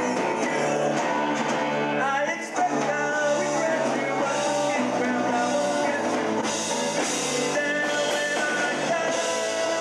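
Live rock band playing: strummed acoustic guitar and electric guitar with a lead vocal.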